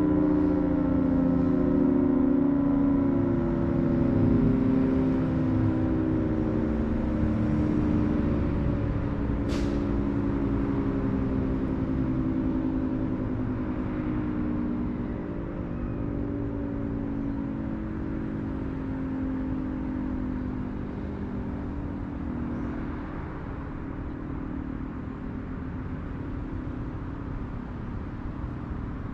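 Federal Sign & Signal 3T22A outdoor warning siren winding down after its steady Alert tone. Several tones slide slowly lower together and fade as the rotor coasts to a stop.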